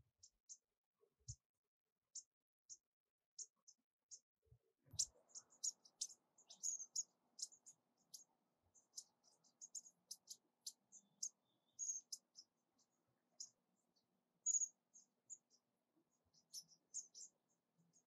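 Bushtits giving short, high, thin contact calls: a few scattered notes at first, then many in quick succession from about five seconds in.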